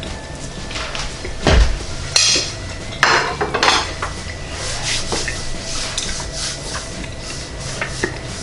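A metal fork clinking and scraping on a ceramic plate, with a dull thump about a second and a half in, then a sharp clatter of plate and fork a couple of seconds later.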